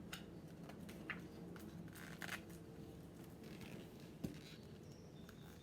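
Faint rustling of paper pages and a few soft taps from a picture book being handled as a page is turned, with a sharper tap about four seconds in, over a low room hum.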